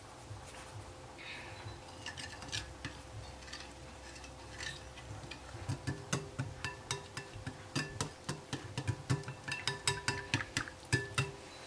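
Wire balloon whisk beating a liquid egg-yolk and milk custard mixture in a glass bowl, the wires clicking against the glass. Only a few faint taps at first, then steady quick whisking, several clicks a second, from about halfway through.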